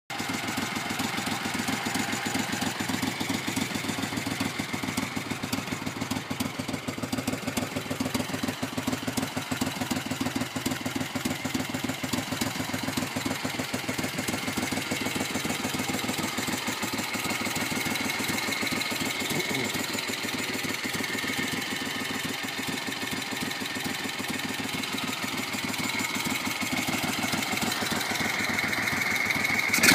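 1973 Moto Guzzi Eldorado's air-cooled 90-degree V-twin, fitted with Mikuni VM28 carburettors, idling steadily after restoration, a little louder near the end.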